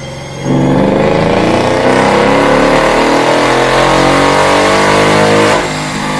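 Mercedes-AMG CLS's V8 on a chassis dynamometer making a full-throttle pull: about half a second in it comes on load and the revs climb steadily for about five seconds, then the throttle closes near the end and the engine falls back, with the dyno rollers' noise mixed in.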